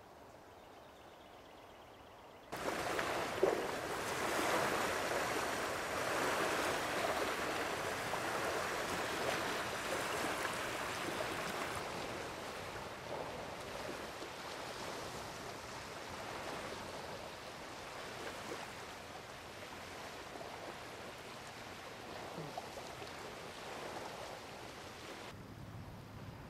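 Floodwater rushing and churning: a steady noisy rush of moving water that starts abruptly a couple of seconds in, slowly fades, and cuts off shortly before the end.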